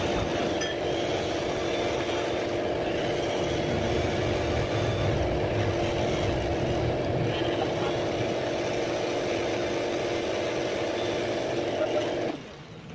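Steady machine drone at a constant pitch, like a motor or engine running, cutting off abruptly near the end.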